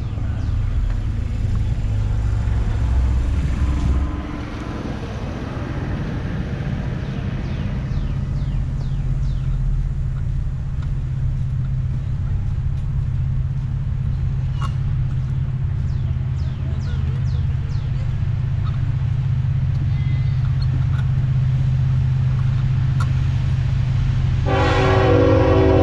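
Steady low hum of a mobility scooter driving along a paved path, with faint high chirps over it. Near the end a loud, held horn blast starts suddenly and keeps sounding.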